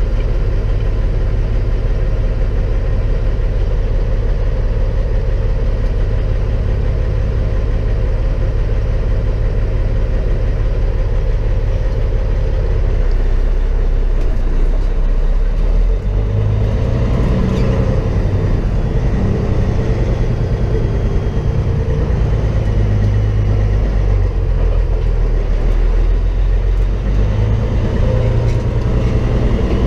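Semi truck's diesel engine heard from inside the cab, idling steadily at first. About halfway through it pulls away under load, its low note growing louder and rising and falling as the truck moves off.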